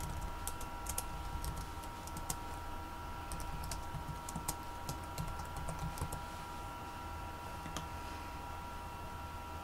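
Typing on a computer keyboard: irregular key clicks for about six seconds, then sparser, with a lone click about eight seconds in, over a faint steady hum.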